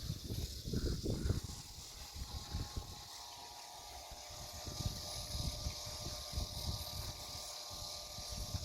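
Outdoor ambience: wind gusts buffeting the microphone, coming and going, over a steady high hiss.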